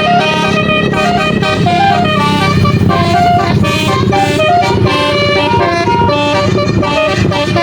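Basuri telolet musical bus horn playing a quick tune, several trumpet tones sounding together and stepping up and down in pitch, over a low rumble from the bus.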